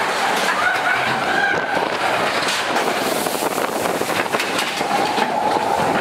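Matterhorn Bobsleds roller-coaster car running along its tubular steel track, a loud steady rumble and clatter of the wheels.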